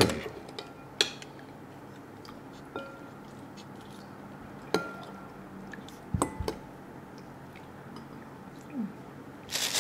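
Spoons scraping and clinking against ceramic bowls and plates as food is served and mixed, a few scattered sharp clinks, some with a short ring. Near the end, plastic starts to crinkle.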